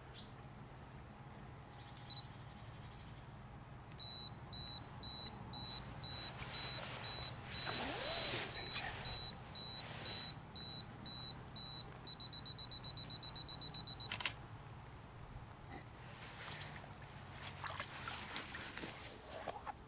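Camera self-timer counting down: a high beep about twice a second for some eight seconds, then a rapid run of beeps for two seconds, ending in the shutter click. Rustling from handling the fish comes midway and again after the shot.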